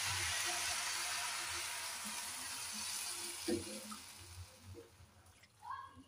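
Hot water hitting a hot pan of fried rice and vegetables, sizzling and hissing and dying away over about five seconds. There is a short knock about three and a half seconds in.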